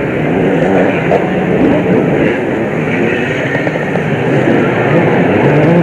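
Several motocross bikes' engines running hard together, their overlapping pitches rising and falling with the throttle.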